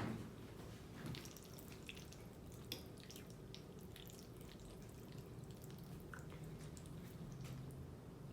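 Quiet wet chewing and mouth clicks of someone eating creamy fettuccine alfredo: many small sticky ticks, with a sharper click right at the start and another a little under three seconds in.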